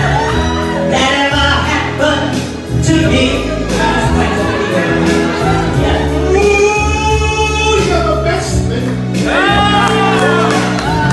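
Recorded song: a vocalist singing over sustained instrumental backing, with a long held note about two-thirds of the way through.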